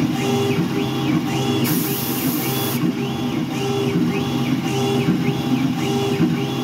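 Langmuir Systems MR-1 CNC mill cutting under flood coolant. Its stepper motors whine up and down in pitch about every half second as the tool sweeps back and forth, over the steady noise of the cut. A brief hiss comes about two seconds in.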